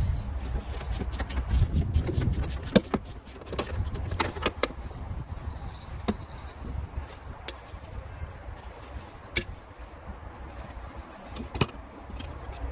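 Hand tools and metal parts clinking and knocking during work on a car's wiper assembly: irregular sharp metallic clicks, a few louder knocks, over a low rumble.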